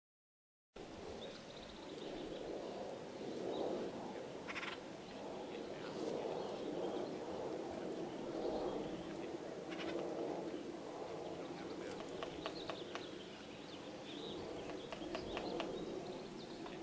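Acorn woodpeckers giving a few short calls over a steady background hiss, with a quick run of sharp taps near the end as a woodpecker works at the wood of a granary tree.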